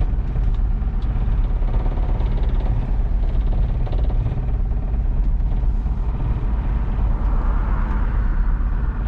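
Classic American car's engine and exhaust running while driving, a steady low rumble described as rattling like thunder, with a slight swell a little before the end.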